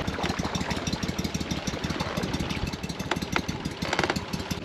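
Small outboard motor running steadily, with a fast, even firing rhythm.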